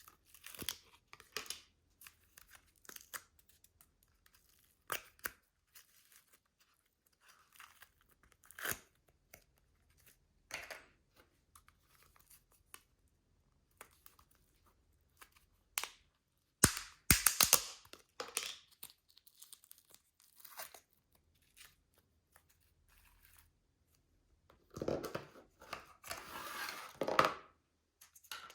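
Slime being handled together with plastic piping bags: intermittent sticky crackles, pops and plastic crinkling. There is a burst of sharp crackling pops just past the middle and a longer squelching, crinkling stretch near the end.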